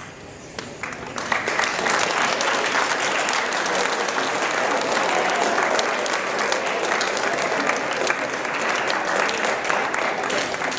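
An audience applauding in a large hall, building over the first second or two and then holding steady as sustained clapping.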